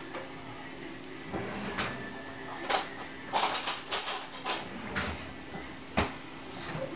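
A cat eating ham from someone's fingers: irregular short clicks of chewing and licking, thickest in a run a little past the middle, with a faint low steady hum underneath.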